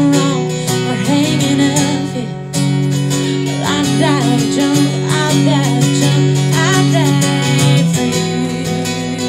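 A live acoustic duo: a woman singing over a strummed acoustic guitar.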